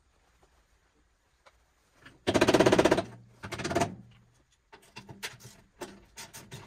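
Cordless impact driver hammering at a rusty compressor mounting bolt in two bursts, a long one about two seconds in and a short one just after, followed by scattered metal clicks and clinks of the socket and bolt.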